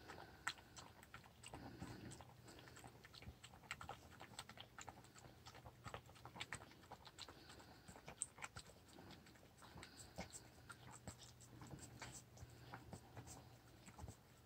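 Dog eating from a bowl: faint, irregular wet clicks of her mouth working the food.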